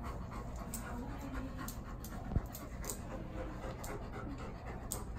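A large black dog panting steadily with its mouth open, in a run of short breaths. A single sharp knock sounds about halfway through.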